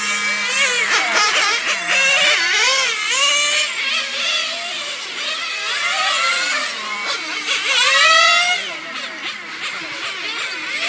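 Small nitro (glow-fuel) two-stroke engines of RC touring cars running at high revs, with more than one car audible. Their high whine sweeps up and down over and over as the cars accelerate and lift off for the corners, loudest about eight seconds in.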